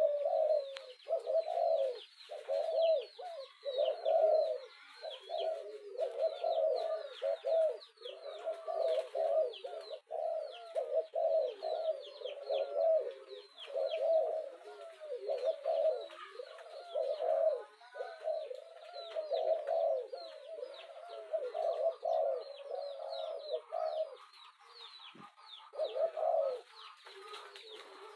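Spotted dove cooing over and over in quick repeated phrases, a calling track used to lure wild doves. Higher, quick chirps from small birds run over it, and the cooing pauses briefly near the end.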